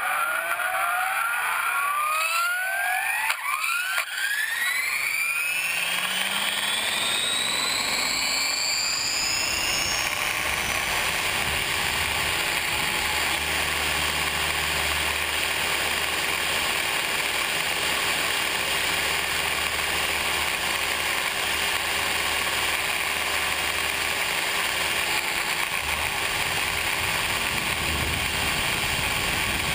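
RC helicopter heard from a camera mounted on board: the motor and rotor spool up with a whine that climbs steeply in pitch over about the first ten seconds. It then runs steadily at flying speed with a constant whine and rotor noise.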